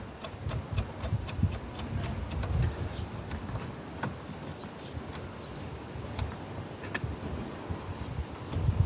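Hand tool working a steering-wheel puller: a quick, even run of metallic clicks, about four or five a second, for the first couple of seconds, then a few single clicks and low knocks of handling. The puller is being tightened against a steering wheel that is stuck on its shaft.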